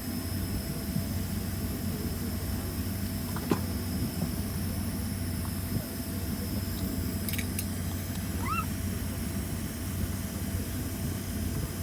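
Steady cabin noise of a Boeing 767 airliner before takeoff: a low hum with ventilation hiss. A few light clicks and, about eight and a half seconds in, one short rising squeak.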